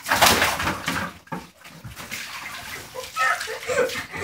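A large water balloon bursting and its water splashing down in a shower, loud for about the first second and then dying away to dripping and rustling.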